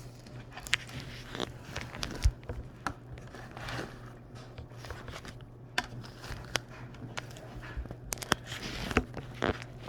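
People biting into and chewing a breaded chicken sandwich on toasted brioche: irregular crisp crunches and small clicks and rustles of handling, over a low steady hum.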